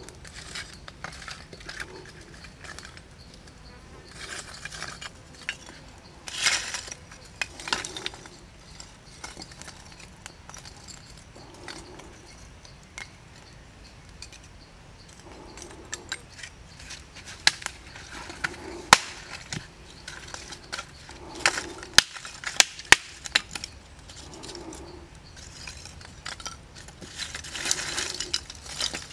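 Lumps of charcoal clinking and knocking as they are stacked onto a small burning twig fire, with several sharp clinks clustered in the second half. Insects buzz steadily in the background.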